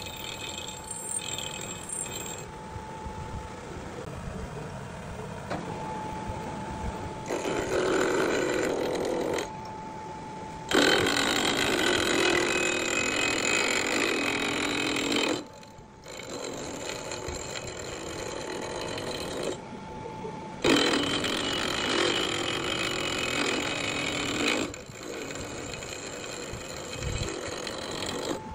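End mill on a milling machine cutting into a crankshaft counterweight, trimming it back: a rough, continuous cutting noise, with a thin steady tone in some stretches. The noise stops, restarts and changes level abruptly several times.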